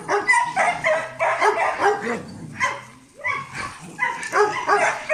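Dogs making a rapid run of short, high, yelping calls as they greet each other, with a brief lull about three seconds in.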